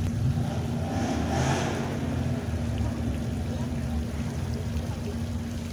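Water splashing in a stone plaza fountain under a heavy low rumble of wind or handling on the phone microphone, with a steady low hum throughout.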